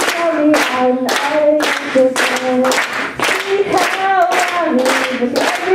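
A woman singing solo into a microphone, holding and sliding between notes, with steady hand claps keeping time about twice a second.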